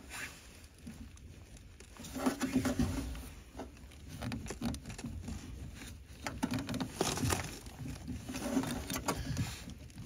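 Fingers gripping, rubbing and scraping on the plastic cap of a heat pump's water filter housing as it is worked loose, in irregular rubs with a few sharper clicks.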